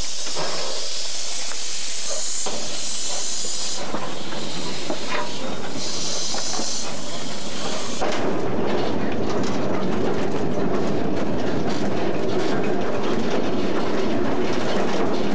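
Three-foot narrow-gauge steam locomotive hissing steam in loud stretches that come and go. About eight seconds in, the sound switches to the locomotive under way: a steady running rumble with rapid clicks of the wheels on the rails, heard from the cab.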